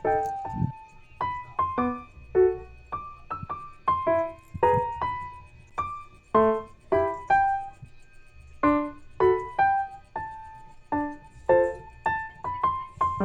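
Background music: a melody of short keyboard notes, each struck and quickly fading.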